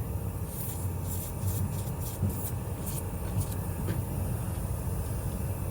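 Tractor engine idling steadily, with faint intermittent high hissing over it.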